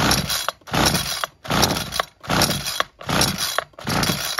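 Ryobi two-stroke multi-tool engine being pull-started: rapid repeated yanks on the recoil starter cord, about five pulls with a click at the end of each. The engine cranks without catching, a failure to start despite a cleaned carburettor.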